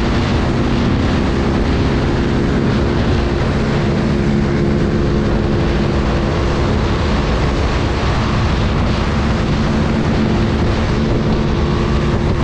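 Motorcycle engine running steadily at cruising speed, around 100 km/h, an even drone over road and wind noise.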